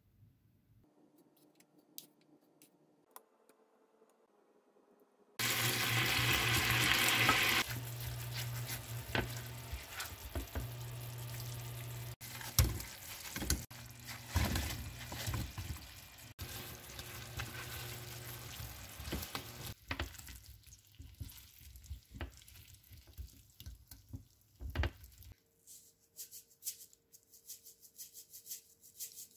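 Sugar syrup sizzling and bubbling in a pan, starting suddenly about five seconds in, with a silicone spatula stirring and knocking against the pan as fried sweet potato chunks are tossed in the syrup to coat them.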